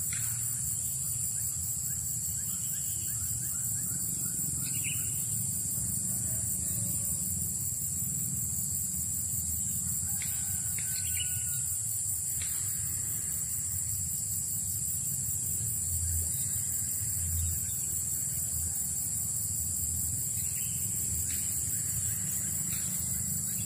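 Outdoor swamp ambience: a steady high-pitched insect drone throughout, with scattered short bird chirps and calls about 5 seconds in, around 10 to 12 seconds and again near the end, over a low steady rumble.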